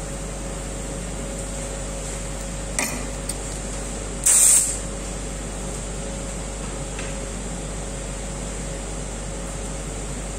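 Compressed-air spray gun fired in one short, loud burst of hiss about four seconds in, spraying textured protective coating. A sharp click comes shortly before it, over a steady background hum.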